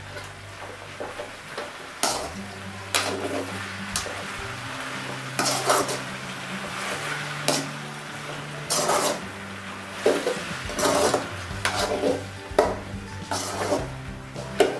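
Slotted metal spatula scraping and stirring sliced potatoes and capsicum in an aluminium kadhai, in irregular strokes about once a second, over a faint sizzle of frying.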